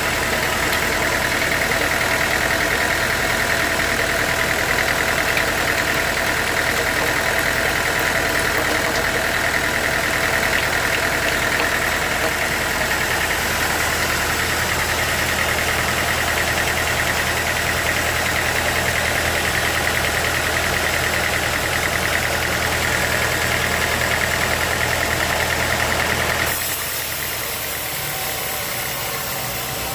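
Sawmill machinery running steadily with a constant hum and a high whine. About 26 seconds in the sound changes abruptly to a quieter, hissier running.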